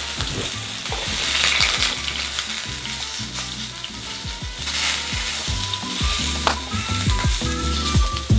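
Burger patties sizzling in a frying pan over a small propane burner, the hiss strongest in the first couple of seconds and again about five seconds in, with background music underneath.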